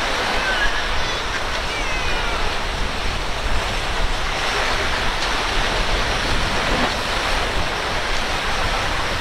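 Steady rush of churning water and wind: inlet waves and the wash of a passing center-console boat's wake.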